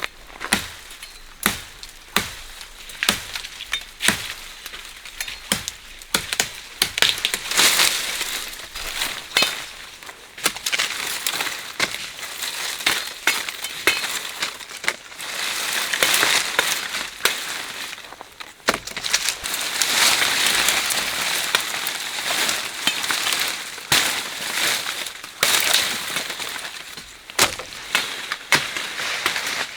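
Woody plant stems and branches being snapped and cut by hand. Many sharp cracks follow each other irregularly, with swells of leafy rustling several times as foliage is pulled and handled.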